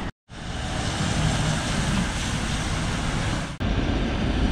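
Volvo EWR150E wheeled excavator running at work: a steady hiss with a low engine hum underneath. It drops out briefly just after the start and changes abruptly at a cut about three and a half seconds in.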